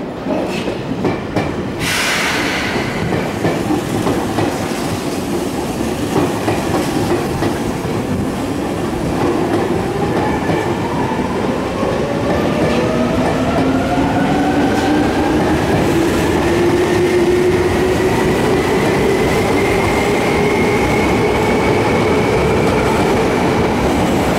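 Yokohama Minatomirai Railway Y500-series electric train pulling into the station and running past close by at low speed, slowly growing louder. A brief hiss comes about two seconds in, and from about eight seconds in a whine rises steadily in pitch.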